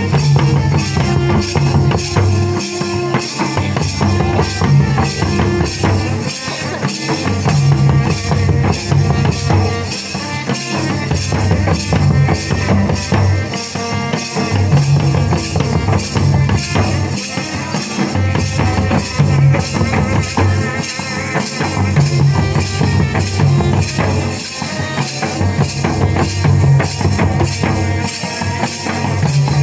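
Several double-headed barrel hand drums (madal) played together in a steady, repeating Jhumur dance rhythm.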